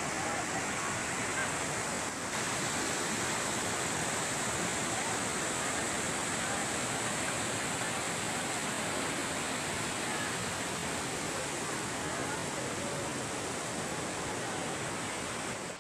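Steady rush of white water: a mountain stream pouring over boulders near a waterfall.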